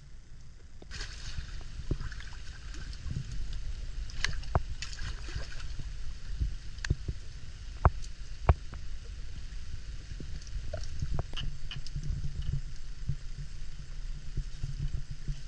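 Water sloshing and splashing as a person wades waist-deep in still water, with scattered sharp knocks and clicks, the loudest about eight seconds in.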